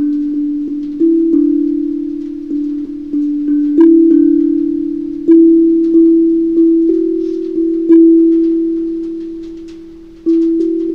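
15-note steel tongue drum played with mallets in a slow melody. Each note starts sharply and rings on, overlapping the next. About two-thirds of the way through, one note is left to ring and fade for about two seconds before the playing resumes near the end.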